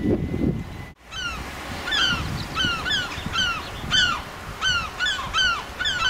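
Wind buffeting the microphone, cut off about a second in, then geese calling overhead: a rapid, overlapping series of short honks, about two a second.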